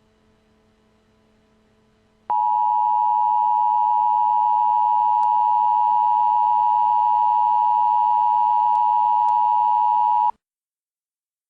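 Emergency Alert System attention tone: a loud, steady electronic tone that starts abruptly about two seconds in, holds unchanged for about eight seconds and cuts off suddenly. A faint hum comes before it.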